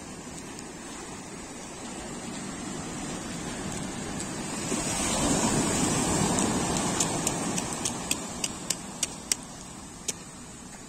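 Surf washing onto the beach, swelling as a wave breaks and rushes up the shore about halfway through, then easing off. A quick run of sharp clicks follows near the end.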